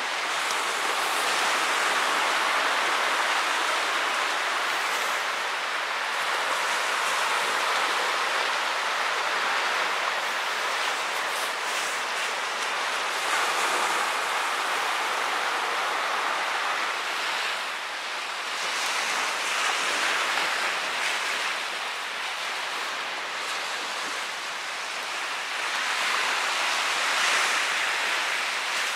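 Small ocean waves breaking and washing up a sandy beach: a steady hiss of surf that swells and eases every several seconds.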